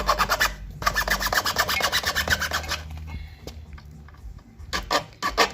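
Rapid back-and-forth rasping strokes of hand-working a PVC pipe, about ten strokes a second for the first three seconds, then a pause and a few more strokes near the end.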